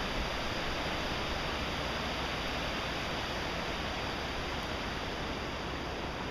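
Steady rushing of floodwater running over a road.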